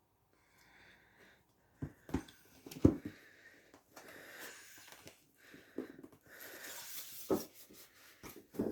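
A cardboard box being handled and opened: card sliding and rustling, with several sharp knocks and taps, the loudest about three seconds in.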